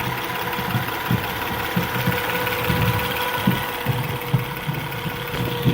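2010 Acura TL's 3.5-litre V6 idling, with a steady high-pitched whine held over the engine's low running sound. The owner has not yet traced where the whine comes from.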